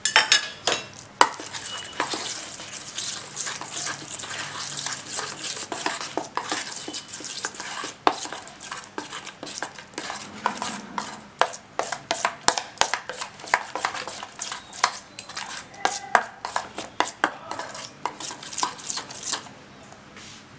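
A metal spoon stirs a thick, wet cornflour-and-curd spice paste in a stainless steel bowl, clicking and scraping against the sides in quick, continuous strokes. The stirring stops about a second before the end.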